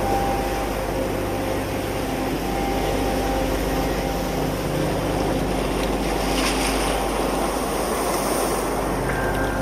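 Surf washing over rocks and seaweed at the edge of a tidepool, with a brighter wash about six seconds in. Several steady sustained tones run underneath.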